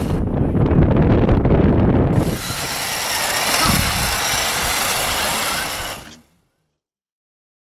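Small electric motor and gears of a radio-controlled scale truck whirring as it drives through mud. The sound cuts off abruptly into silence about six seconds in.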